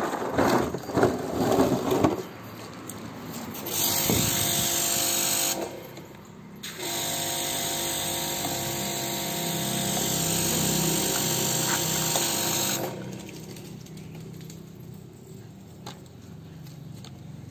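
Opens with about two seconds of loud scuffling noise. Then a handheld electric blow dryer runs with a motor whine and a rush of air: once briefly, then for about six seconds, cutting off abruptly each time.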